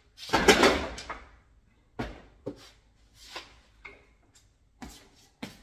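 Washed raw goat meat chunks tipped from a plastic basin into a large metal pan: one loud wet slide and clatter of meat landing about half a second in, then a handful of lighter, separate knocks as the pieces settle and the basin is handled.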